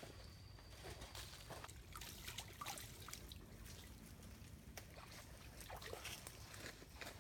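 Faint trickling and sloshing of water scooped by hand from a small shallow pool, with scattered light rustles and ticks of dry leaf litter.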